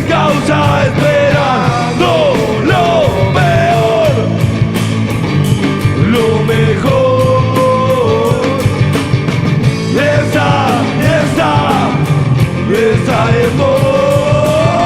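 Rock band playing an instrumental passage live: a lead line bending up and down in pitch over bass and steady drums.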